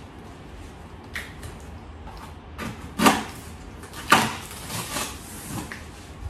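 Long cardboard flat-pack box being handled, its top flap pulled open: a few short scraping, rustling knocks of cardboard, the two loudest about three and four seconds in.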